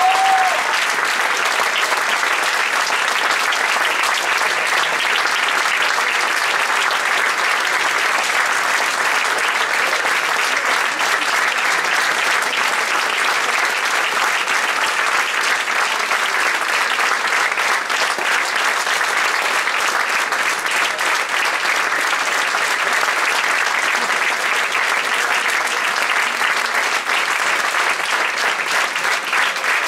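Theatre audience applauding at a curtain call: dense, steady clapping from a large crowd.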